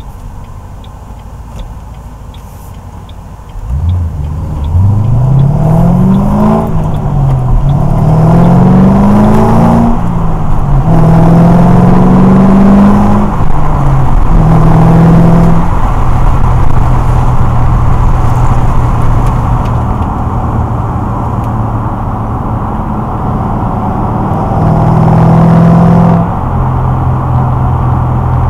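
2006 Mustang GT's 4.6-litre V8 exhaust, through a catless Pypes off-road X-pipe and Magnaflow axle-back mufflers, heard inside the cabin. It runs quietly at first, then about four seconds in accelerates hard, its pitch climbing and dropping three times as it shifts up through the gears. It then settles into a steady cruising drone, with a brief rise near the end.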